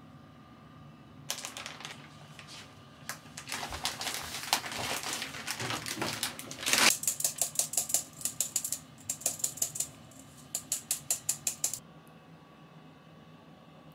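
Baking prep sounds: a plastic bag rustling and crinkling while flour is measured out, then quick rhythmic clicks of a utensil against a bowl, about five a second, in two spells that stop shortly before the end.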